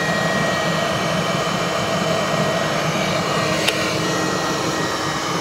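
Steady, even roar of a homemade waste-oil forge burner running, with a single light click about three and a half seconds in.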